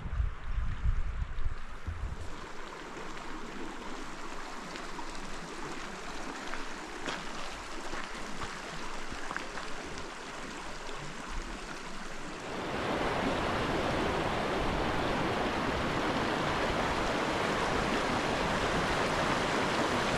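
Rushing mountain stream, a steady hiss of water, with wind buffeting the microphone in the first couple of seconds. About twelve seconds in the water suddenly becomes louder and fuller.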